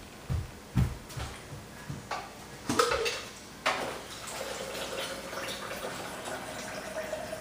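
Sharp plastic clicks and knocks from handling a VHS cassette and its case, then, about four seconds in, a steady hiss with a faint hum.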